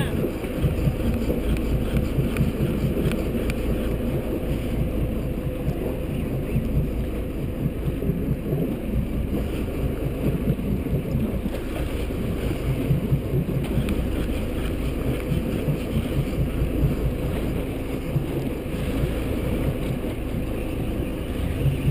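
Outboard motor of a small fishing panga running steadily, with wind buffeting the microphone.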